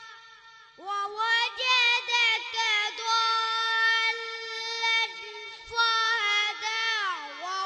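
Boy singing a devotional naat into a microphone in a high voice, with long held notes ornamented by quick turns. His voice comes in about a second in, and a long downward slide near the end ends one phrase.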